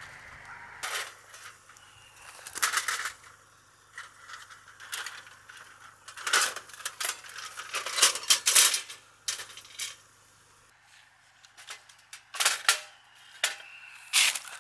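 Irregular clinks, taps and rattles of small hard objects being handled and set down, in scattered clusters with short quiet gaps between.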